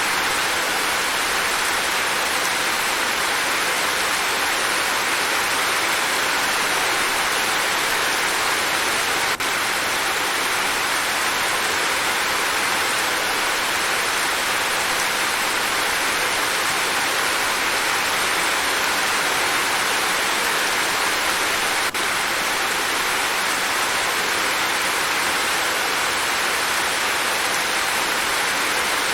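Steady, even rain falling without a break.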